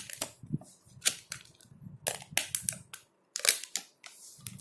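Thin plastic protective wrapper crackling and snapping as it is peeled off a new smartphone: a string of sharp, irregular clicks with a brief rustle near the end.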